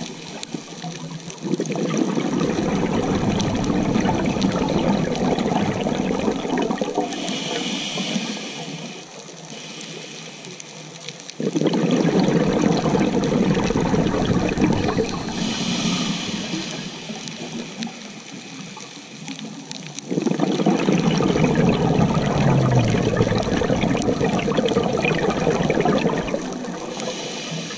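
Scuba diver breathing through a regulator underwater: a short hissing inhale, then a long rush of exhaled bubbles. The cycle comes round three times, about every nine seconds.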